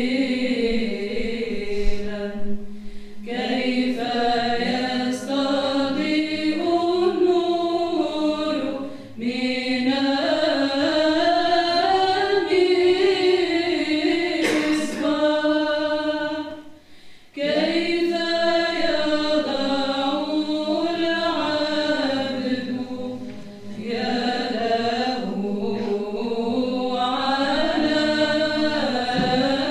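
Women's choir of Orthodox nuns singing a hymn of Epiphany (Theophany) in Orthodox chant, unaccompanied. A melody winds up and down in long phrases over a steady low held drone note, with short breaks for breath between phrases, the longest about 17 seconds in.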